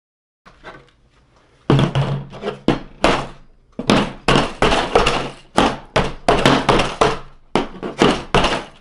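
A rapid run of sharp knocks or thumps from blows struck at a desk, about three a second, each ringing briefly, starting faintly and then loud from under two seconds in.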